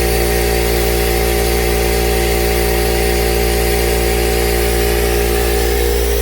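Steady mechanical hum of a running machine, holding an even pitch with several layered tones throughout.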